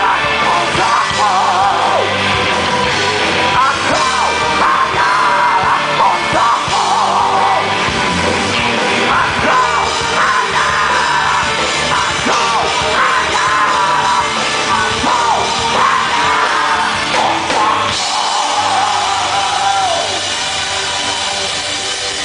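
Rock band playing live, with electric guitar, bass, drums and keyboard, while the lead singer sings and yells over it. The vocals stop near the end and the band plays on a little quieter.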